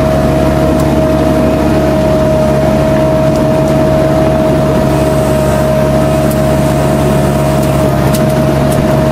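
Kubota U-45 mini excavator's diesel engine running at steady revs, with a constant whine over the engine note.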